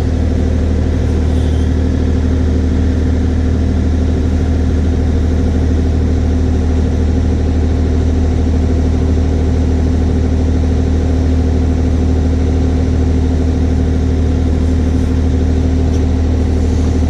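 Kubota 040 excavator's diesel engine running at a steady, unchanging speed.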